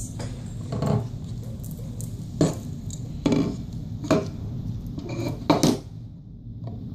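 Aluminium extrusion and 3D-printed plastic parts knocking and clattering against a tabletop as they are handled, about six sharp knocks, two of them in quick succession near the end.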